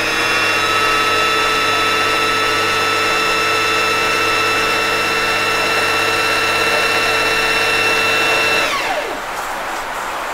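Singer FM 2250 electric sewing machine's motor running fast on the foot pedal to wind a bobbin: a steady whine that glides down and stops a little before the end.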